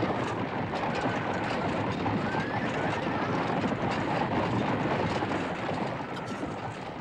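A troop of many horses riding up, their hooves making a dense, steady rumble of rapid overlapping beats that eases a little near the end.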